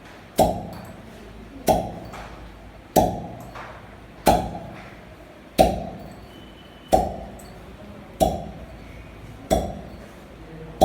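A clinking strike with a short ring, repeated at a very even pace about every 1.3 seconds, nine times, each dying away before the next.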